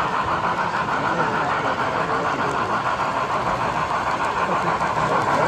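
N scale model train running on the layout track: a steady mechanical running sound, with the chatter of a crowd underneath.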